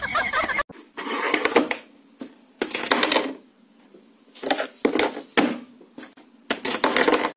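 Scratching and clattering in irregular bursts: about five clusters of sharp clicks and scuffling with quiet gaps between them.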